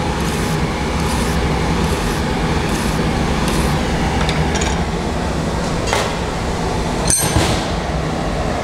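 Wire brush scrubbing an aluminium workpiece in repeated back-and-forth strokes, about one every 0.7 seconds, to strip the oxide layer before welding, over a steady low hum. A sharp click comes near the end.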